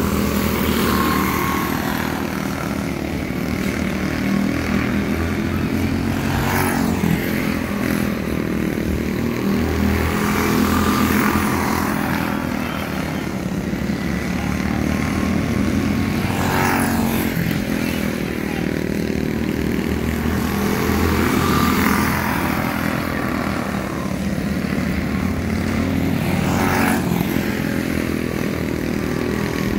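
Several quarter midget race cars' small single-cylinder engines running at racing speed, rising each time the cars go past, about every five seconds.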